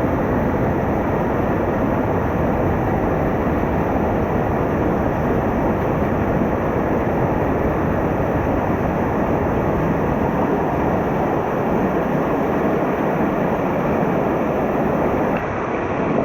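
Mountain stream water rushing over rocks, a loud, steady roar.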